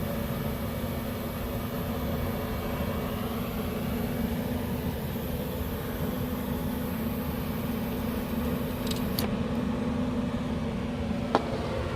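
A 2000-watt power inverter and a 1300-watt electric cooktop running under load off van batteries: a steady fan hum with a constant low drone. A faint high whine cuts off about nine seconds in, and there is one sharp click near the end.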